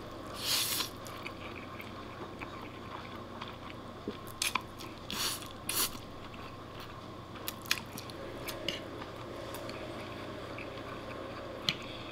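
Spaghetti being slurped into the mouth and chewed: a short hissing slurp about half a second in, three more in quick succession around the middle, and wet chewing with small lip clicks between.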